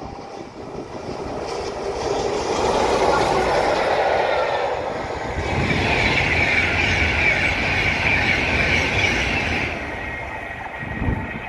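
Electric express passenger train passing close at speed: the wheel-on-rail noise builds, then a high hissing whine with wheel squeal carries from about five seconds in to near ten seconds, and fades as the train runs away.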